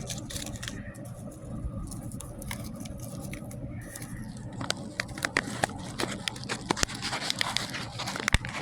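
Irregular light clicks and taps of small objects being handled, growing more frequent from about halfway through, over a steady low hum.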